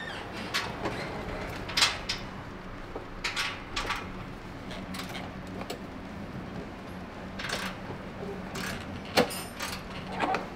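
Scattered metallic clinks and knocks of hand tools and exhaust hardware as a cat-back exhaust is tightened up under a car, over a steady low hum.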